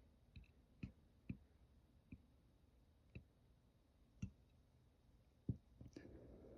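Near silence broken by about ten faint, sharp clicks at irregular spacing, with a soft low rustle near the end.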